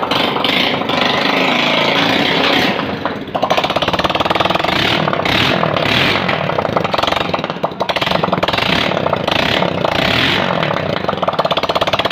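Honda Pridor's single-cylinder four-stroke engine running just after a top-end overhaul with new piston rings, without its silencer fitted; the revs rise about three seconds in and it keeps running loud and fast.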